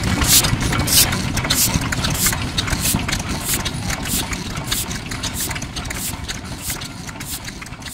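Yanmar Type HC 10 hp single-cylinder diesel engine (around 1950) running slowly, its exhaust breathing through the silencer in a regular puff about every 0.6 s over a low rumble. The sound gradually fades in the later seconds.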